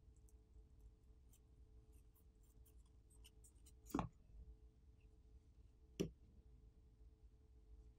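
A plastic pry pick worked along the edge of a phone screen to pry the heat-softened screen off: faint scratchy ticks, then two sharp clicks about four and six seconds in.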